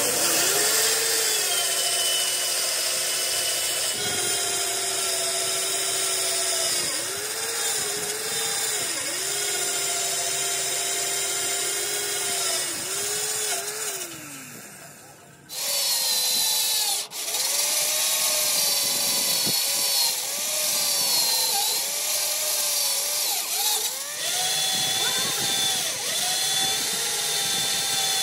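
Heavy electric hand drill boring through a steel truck chassis rail. Its motor whines steadily and sags in pitch each time the bit bites under load. About halfway through it winds down and stops, then starts again about a second later.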